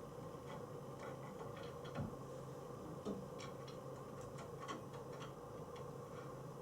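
Faint, irregular light clicks and taps of screws and small flat-pack chair parts being handled and set in place, over a low steady hum.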